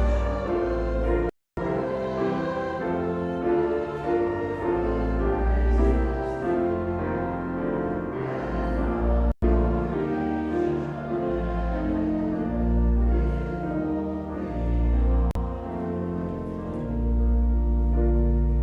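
A church hymn played with keyboard accompaniment, its chords moving over long-held low bass notes. The sound cuts out for an instant about a second and a half in, and again about nine seconds in.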